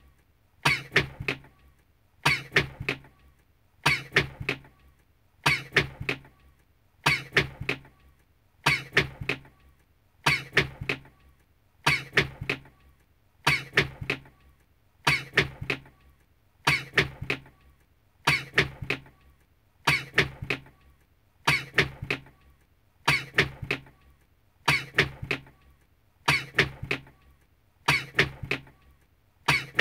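A man's sneeze, the same short clip looped over and over, about every second and a half in a steady rhythm.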